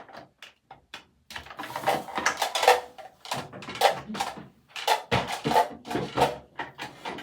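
Hairbrush strokes through hair close to the microphone: a run of irregular scratchy swishes, several a second.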